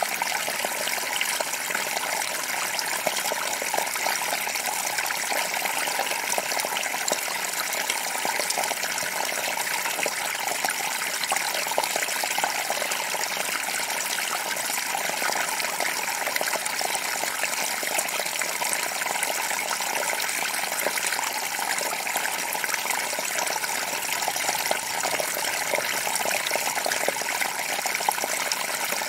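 Small forest creek babbling steadily over a rocky bed, an even rush of water with no breaks.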